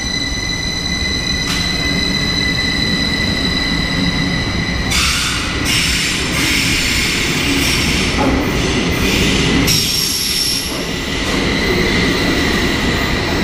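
SBB double-deck train pulling out along an underground platform, with a low rumble and a steady high-pitched squeal. From about five seconds in it turns into a louder, rushing hiss as the train gathers speed.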